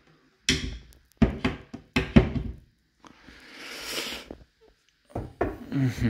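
Soft-close kitchen cabinet doors being opened and shut by hand: a string of dull thunks and knocks, with a brief hissing slide about four seconds in.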